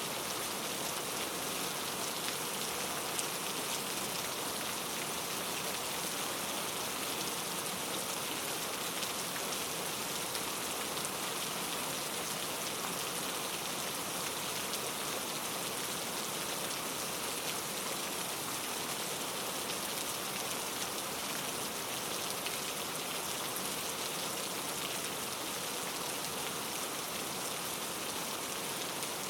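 Steady rain falling, a dense even hiss of many drops with faint individual drop ticks.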